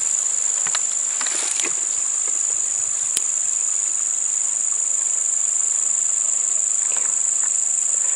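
Steady, high-pitched insect chorus, with a few faint ticks and rustles near the start and again about seven seconds in.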